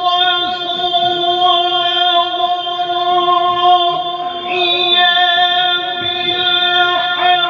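A male Quran reciter (qari) holding one long, unbroken note of tilawat in a single breath, the pitch held steady, with a shift in the ornament about four seconds in.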